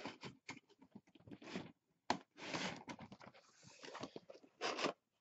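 Cardboard toy box and its plastic tray being handled: scraping and rustling with small clicks and taps as the contents are forced back into a tight box, with a longer scrape about two seconds in and another near the end.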